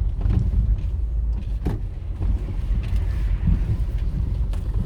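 Low, steady rumble of a vehicle driving along, with a short knock about a second and a half in.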